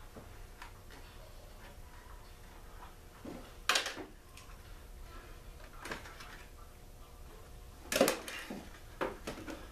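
Scattered knocks and rattles of small parts and tools being handled on a wooden workbench during disassembly of a small generator. The two loudest come about four seconds in and eight seconds in.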